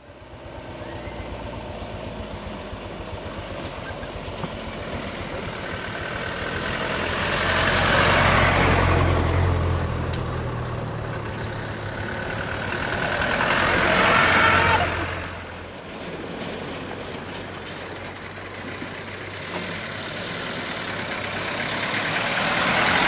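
Motor vehicles driving past on a road: a steady engine hum with two close passes that swell and fade, about a third of the way in and just past the middle, and another drawing near at the end.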